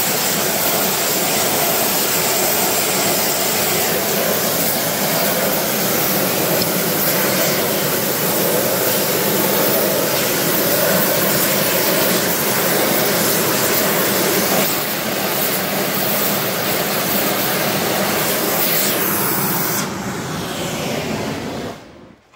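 Oxy-fuel heating torch flame burning with a loud, steady rush as it heats bent steel square tubing red hot for straightening. The flame noise cuts off near the end.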